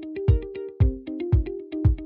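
Background electronic music with a steady kick-drum beat about twice a second under sustained chords.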